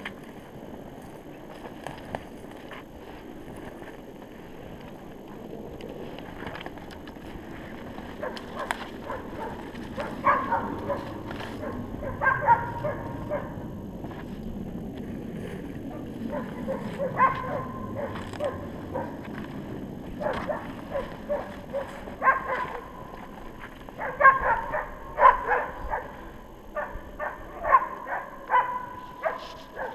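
West Siberian Laika barking in volleys of short, quick barks that start about ten seconds in and keep coming: a hunting laika baying game on a bear hunt. Footsteps crunch through snow underneath.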